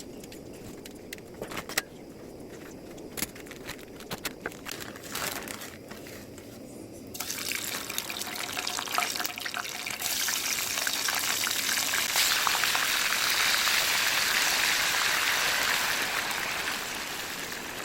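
Scattered crackles and clicks, then about seven seconds in a loud sizzle starts and grows louder around ten seconds in: meat frying in a hot pan over a campfire.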